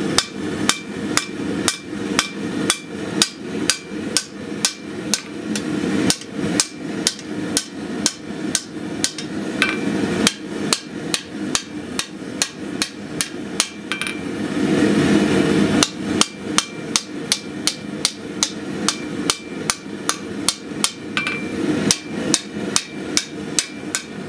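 Hand hammer striking a glowing Damascus steel habaki (katana blade collar) on the anvil in a steady rhythm of about three blows a second, rough-forging it around the sword's tang; some blows ring briefly. About halfway through, a steady rushing noise swells for a couple of seconds and cuts off sharply while the hammering goes on.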